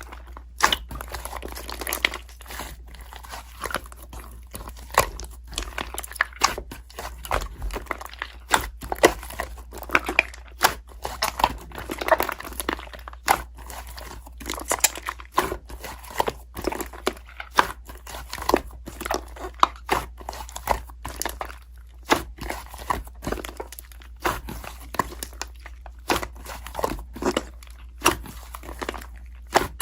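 Irregular crunching and crinkling: many short crackles and clicks at uneven intervals, like something being chewed or crumpled.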